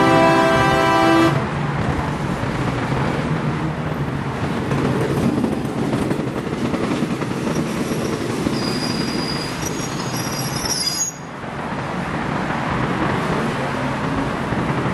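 Train horn blowing and cutting off about a second in, then a passenger train's carriages rolling past with steady wheel-on-rail noise. A faint high wheel squeal comes in partway through.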